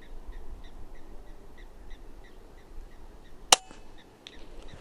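A single shot from a suppressed Daystate Red Wolf Safari .22 PCP air rifle about three and a half seconds in: one sharp crack. Under a second later comes a faint smack, the slug striking the dove in a headshot. Faint high chirps repeat steadily in the background.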